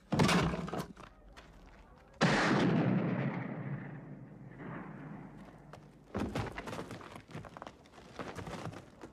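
A pistol shot about two seconds in, sudden and loud, with a long echoing tail that fades over several seconds. A sharp bang comes just before it at the very start, and a cluster of sharp knocks about six seconds in.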